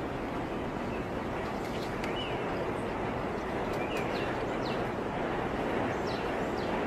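Steady rushing water noise, with a few faint, short, high chirps scattered through it.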